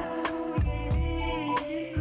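Background music with a steady drum beat under sustained held tones.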